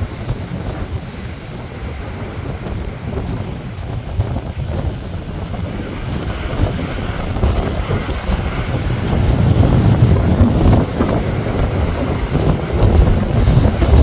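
Wind buffeting the microphone in a rough low rumble, growing louder in the second half, over the wash of Lake Michigan waves breaking against shoreline rocks.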